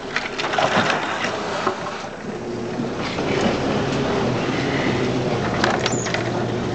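Land Rover Series IIA's 2.25-litre four-cylinder petrol engine running under load as it drives over rough off-road ground, heard from inside the cab, with the body and loose fittings clattering and knocking over the bumps in the first couple of seconds. The engine note then settles into a steady drone from about three seconds in.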